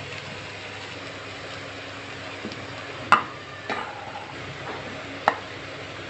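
Vegetables frying in oil in a pan, a steady sizzle, with three sharp knocks of a steel spoon and plate against the pan as cooked rice is added. The first knock, about three seconds in, is the loudest.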